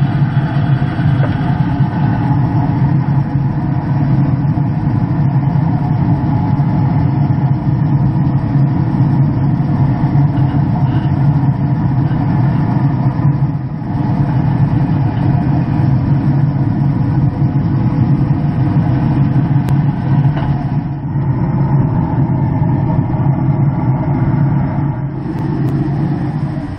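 Traeger pellet grill's fan running with a steady low hum as the grill fires up.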